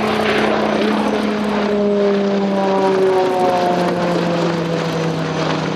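Eurocopter X3 hybrid helicopter flying overhead: a steady drone from its main rotor and two wing-mounted propellers. Its tones drop in pitch about two to four seconds in as it passes.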